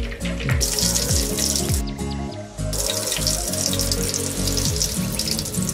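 Batter-coated baby corn deep-frying in hot oil, a loud sizzle that swells about half a second in as pieces are dropped in, drops off for about a second, and swells again. Background music with a low bass line runs underneath.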